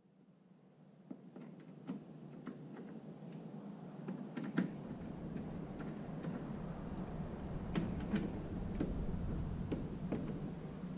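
Scattered light clicks and taps of a screwdriver and hardware as the wicker bill is screwed onto the rear spoiler, over a low background hum. The sound fades in over the first few seconds.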